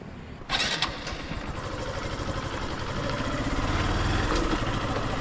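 Motorcycle engine approaching along a road, growing steadily louder as it comes closer. A sudden rush of noise starts about half a second in.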